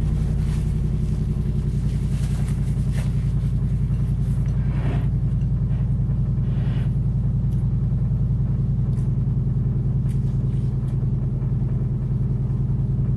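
Steady low mechanical rumble, even in level throughout, with a few faint short soft noises about five and seven seconds in.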